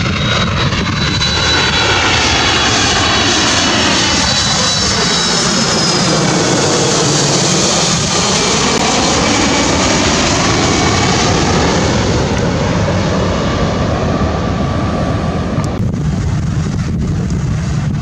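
Twin jet engines of a widebody airliner on landing approach passing low overhead, with gear down. The loud roar sweeps through the pass and a high engine whine drops in pitch as the plane goes over. Near the end the roar thins and gusts of wind buffet the microphone.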